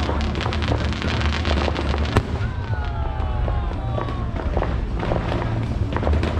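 Aerial fireworks display: shells bursting and crackling in quick succession, with one sharp bang about two seconds in and a whistle falling in pitch soon after.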